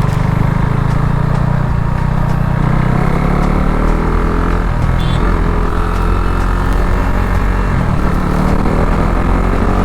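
KTM RC 390's single-cylinder engine running as the motorcycle is ridden, its note falling and rising with the throttle.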